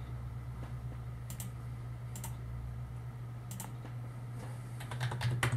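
A few single clicks spaced about a second apart, then a quick run of keystrokes on a computer keyboard near the end as a password is typed in, over a steady low hum.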